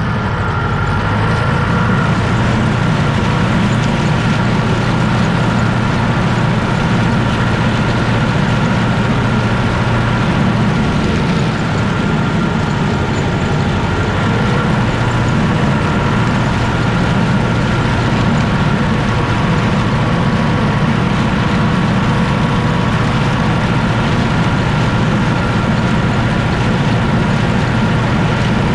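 Universal U650 tractor's four-cylinder diesel running steadily under load, driving a tractor-mounted Zmaj-Zemun 223 corn picker through its PTO shaft as it takes in cornstalks. A steady high whine sits over the engine throughout.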